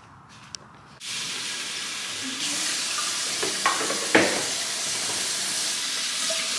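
Tap water running into a sink, starting about a second in and getting louder a moment later, with a couple of sharp clinks from a pan and dishes being handled in a plastic washing-up tub.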